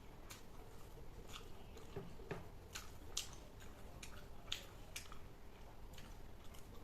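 A person chewing food close to the microphone: soft, irregular mouth clicks and smacks, about one or two a second.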